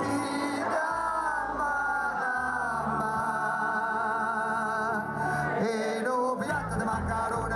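A live band playing with a singer holding long sung notes over steady bass notes.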